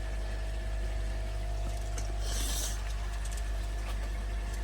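Steady low hum of running pond pump machinery, with a short hiss about halfway through.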